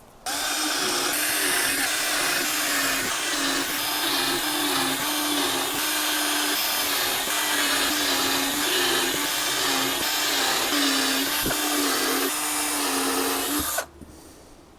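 Electric power tool motor running for about thirteen seconds, its pitch sagging and recovering again and again as it works under load, then switching off suddenly.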